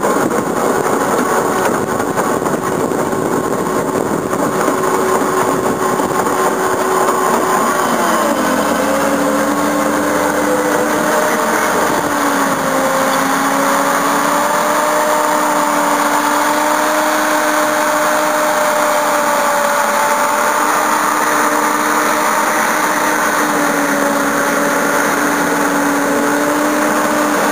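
Tracked dozer's engine running steadily while the machine tracks and turns in place. Its hum drops slightly in pitch about eight seconds in, then holds steady.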